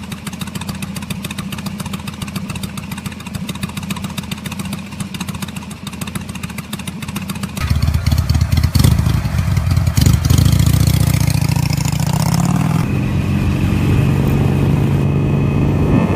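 Motorcycle engine running with a fast, even firing beat. About halfway through it becomes much louder and is revved, rising in pitch for a couple of seconds before settling.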